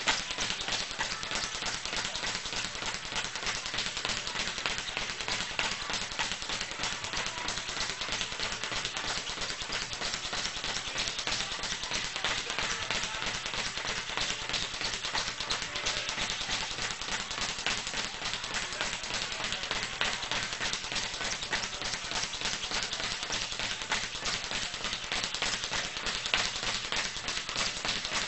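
Rapid, unbroken patter of light taps, many per second.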